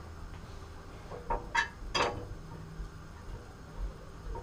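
A few light clinks of kitchenware at the stovetop, three short ringing taps in quick succession, over a steady low hum.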